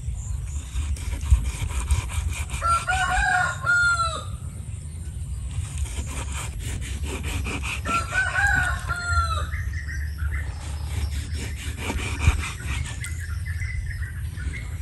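A rooster crows twice, about two and a half seconds in and again about eight seconds in. Under it, a kitchen knife saws through raw pork belly on a wooden chopping board, with an occasional knock of the blade on the board.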